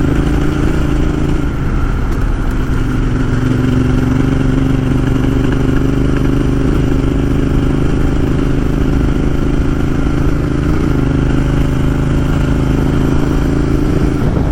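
Motorcycle engine running steadily while riding, with a small shift in engine pitch about two seconds in.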